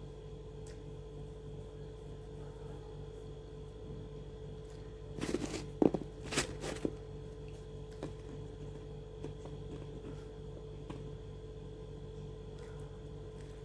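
Steady low electrical hum with a faint even tone. About five to seven seconds in comes a brief cluster of crackling, rustling noises.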